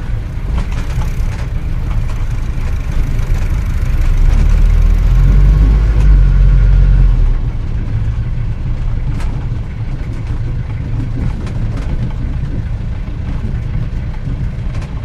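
Vintage car from around 1940 driving, its engine running steadily; the engine grows louder about a quarter of the way in and drops back a little before halfway, with a few scattered clicks.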